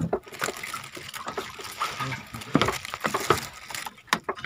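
Water splashing and trickling around a small fishing boat, with scattered irregular knocks and clicks.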